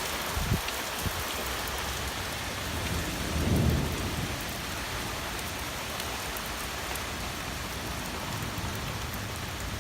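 Heavy rain falling steadily, with a low rumble of thunder swelling and fading about three and a half seconds in. Two short low thumps come in the first second.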